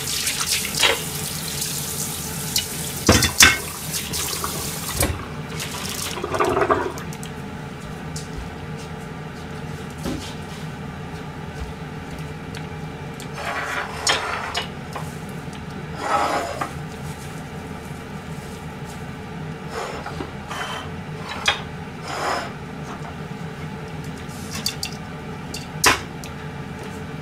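Tap water running into a stainless-steel kitchen sink as hands are rinsed, shut off about five seconds in. After that, scattered short knocks and clatters of kitchenware being set down and moved on the counter.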